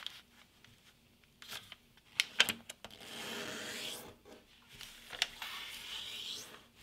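A thin sheet of kami origami paper being folded and creased by hand: a few crisp paper crackles, then two rubbing strokes of about a second each as fingers slide along the fold to crease it sharply.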